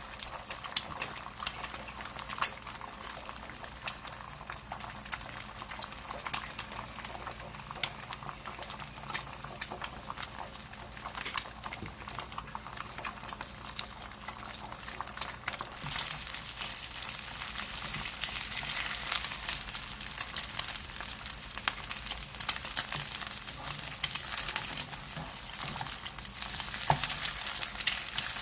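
Food frying in a pan: a steady sizzle with scattered crackles and pops, growing louder about halfway through.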